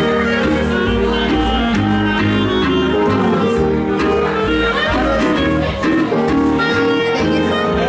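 Live country band playing an instrumental passage with a steady beat, fiddle and guitar over bass and drums.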